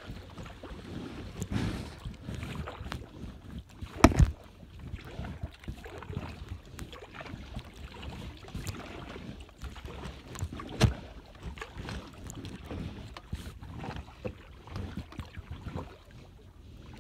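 Kayak paddling: the paddle's strokes in the water, with wind on the microphone. Two sharp knocks stand out, the loudest about four seconds in and another near eleven seconds.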